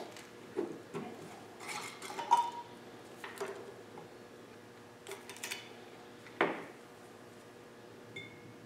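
Scattered clinks and knocks of a glass mason jar and its metal screw lid being handled on a wooden table, with metal pliers knocking in and against the jar; the loudest knock comes about six and a half seconds in.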